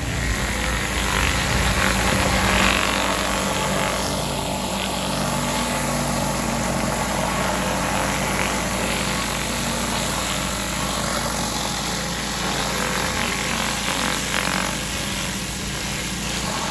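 Pressure washer running steadily: a petrol engine humming under the hiss of the high-pressure water jet spraying onto the driveway.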